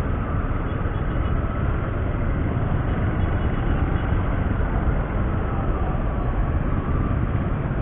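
Steady running noise of a Bajaj Rouser NS135 single-cylinder motorcycle being ridden in traffic, mixed with wind rushing over the camera microphone.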